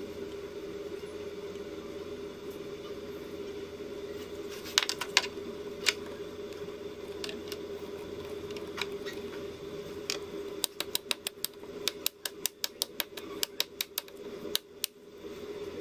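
Sharp plastic clicks and taps from handling a plastic troche mold with a metal spatula, over a steady low hum. A few isolated clicks come about five seconds in, then a quick, uneven run of clicks, about three or four a second, over the last five seconds.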